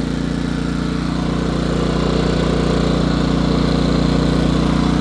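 Westinghouse iGen2550 inverter generator's small single-cylinder four-stroke engine running steadily under electrical load. It grows a little louder about two seconds in.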